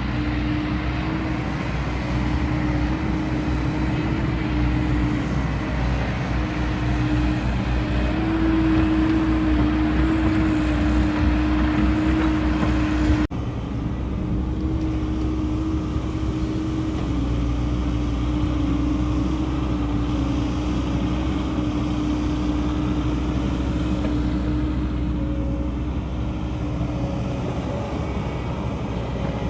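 Diesel engine of a JCB digger running steadily under working load, its pitch rising and falling a little as the hydraulics work. The sound breaks off abruptly about 13 seconds in and resumes at once.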